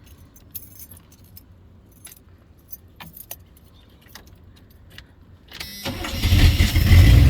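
Keys jingling and clicking at the ignition of a 1985 GMC pickup, then its 350 V8 cranks briefly and fires about five and a half seconds in, running loudly to the end.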